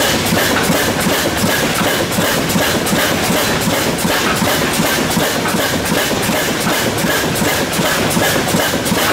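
Antique stationary engine with a large spoked flywheel running steadily and driving a 1905 Edison bipolar DC generator: a fast, even mechanical clatter of about four to five beats a second.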